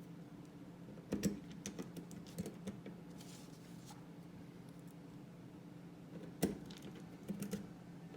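Small metal clicks and taps as a T8 Torx driver seats in and turns the spacer screws of a balisong handle, the sharpest click about six and a half seconds in. A steady low hum runs underneath.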